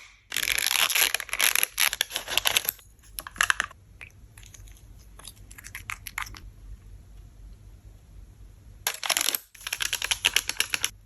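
Small plastic toy pieces being handled, clicking, rattling and crinkling in two busy bursts, the first lasting about three seconds and the second starting near the end, with faint scattered clicks between.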